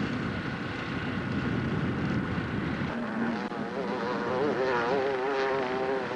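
Dirt bike engine revving hard up a steep hill, its pitch wavering up and down with the throttle. It is rough and noisy at first and comes through as a clear revving note from about three seconds in.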